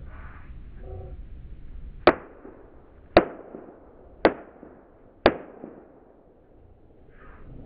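Four sharp knocks, evenly spaced about a second apart, each with a short ringing tail.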